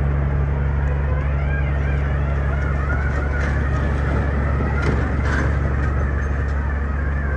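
Motor vehicle engine running steadily with a constant low hum.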